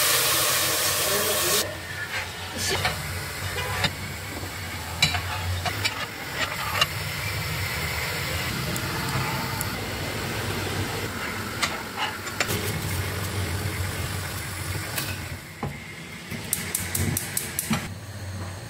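Bulgur, onion and pepper paste sizzling in hot oil in a stainless steel pot while being stirred, loud for the first second and a half. A lower steady hiss follows with scattered light clicks and knocks of kitchen work, and a quick run of sharp clicks near the end.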